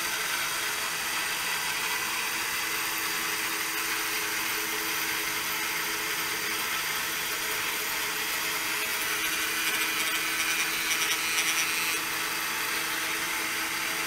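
Small electric motor driving a rose engine lathe's cutting frame through a round belt, running steadily as the cutter works the piece. About ten seconds in the sound grows briefly louder and scratchier.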